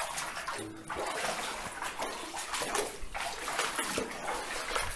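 Water splashing and rushing: a steady noisy wash with uneven flickers.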